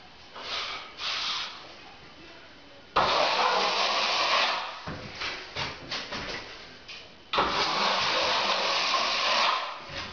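Plastering trowel scraped hard across wet plaster on a ceiling, laying down a skim coat of base-coat plaster. Two long scraping strokes of about two seconds each, starting about three and seven seconds in, with shorter scrapes near the start and between them.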